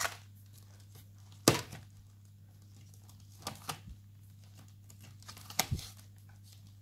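Storage sheets of metal cutting dies being flipped through and handled in a box: a few sharp clacks and rustles, the loudest about one and a half seconds in, over a low steady hum.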